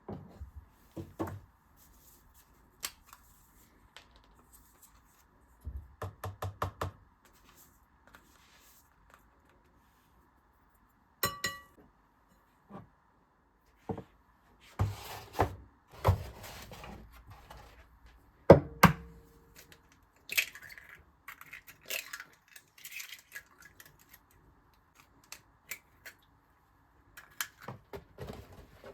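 Household handling sounds of dishes and utensils being set down and moved: scattered knocks and clatters, a ringing clink about eleven seconds in, and a heavier knock with a short ring a few seconds later.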